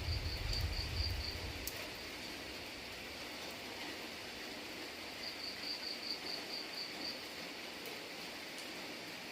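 Steady rain falling, with an insect chirping in a fast pulsed trill of about five chirps a second, heard at the start and again about five seconds in. A low rumble underlies the first second and a half.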